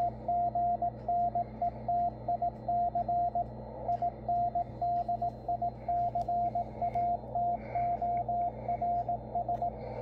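Morse code from the W1AW code practice transmission on 80 meters, received on a Yaesu FTdx10 transceiver. It is heard as a single steady tone keyed on and off in dots and dashes, with a short pause about three and a half seconds in, over faint band noise. The radio is tuned onto the centre of the signal so that its CW decoder can copy it.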